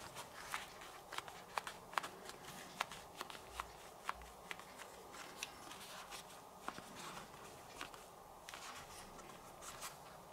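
Light, irregular clicks and taps with brief rubbing near the end: hands handling a pair of on-ear headphones.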